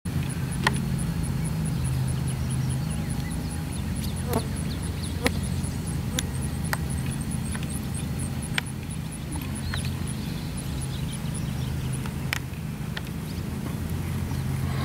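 Outdoor field ambience: a steady low hum with a fast, regular high-pitched chirping pulse of about five a second, and scattered short chirps and sharp clicks.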